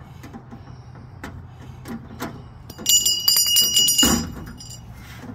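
A length of copper pipe clattering, with a high metallic ringing for about a second, ended by a single heavy thump. Light clicks come before it.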